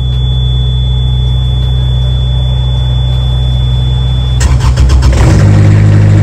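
Trailer refrigeration unit's diesel engine: a steady low hum with a thin high whine, then a little over four seconds in a burst of clatter, and the engine note steps up and grows louder as the unit starts up and picks up speed.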